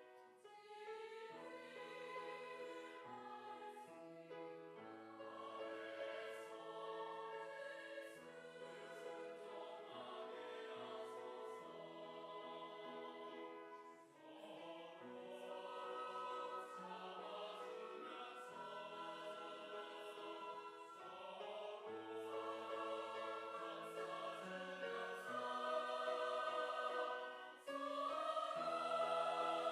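Church choir singing a Korean hymn in several parts, in long sustained phrases, swelling louder over the last few seconds.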